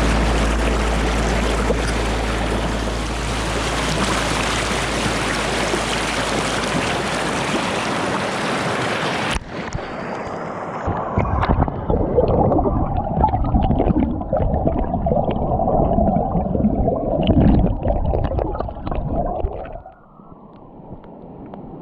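Rushing river water as a steady, loud wash. About nine seconds in the sound cuts abruptly to a muffled, lower gurgling of water with many small knocks, which drops away near the end.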